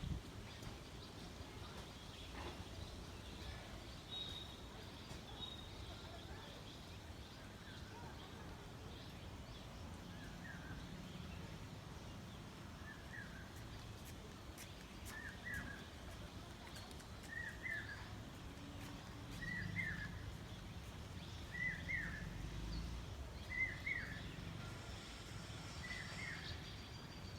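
A bird repeating a short call about every two seconds, about eight times, starting about ten seconds in, over a faint low background rumble.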